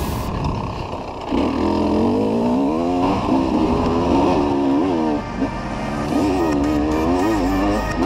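Dirt bike engine revving up and down repeatedly as the throttle is opened and eased, its pitch rising and falling every second or so, with short let-offs about a second in and again past the middle.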